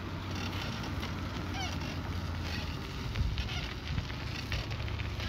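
Wind rumbling on a phone microphone while riding a bicycle, with the tyres rolling over a gravel shoulder and small crunching clicks from about three seconds in.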